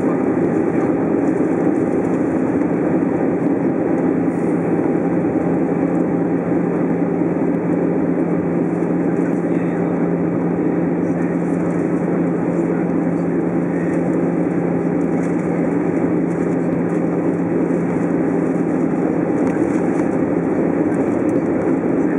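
Airbus A320 cabin noise heard from a window seat over the wing during descent on approach: a steady rush of engine and airflow noise with a constant low hum underneath.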